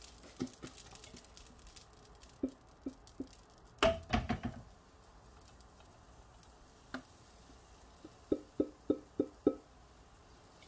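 Knocks of a silicone spatula against a frying pan and mixing bowl as pancake batter is spooned in. The knocks are scattered at first, with a louder clatter about four seconds in. Near the end comes a quick run of five or six taps, about four a second.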